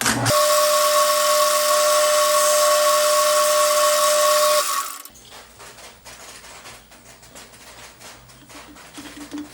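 An electric motor runs steadily with a constant whine for about five seconds, starting abruptly and then cutting off.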